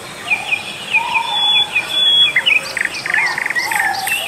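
Jungle birds calling: a quick run of short high chirps, several notes a second, joined by lower whistled notes, then faster rattling trills in the second half.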